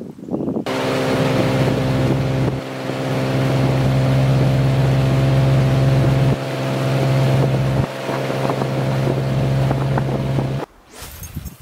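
Small boat outboard motor running at a steady pace, an even engine hum with rushing noise over it; the sound breaks off suddenly near the end.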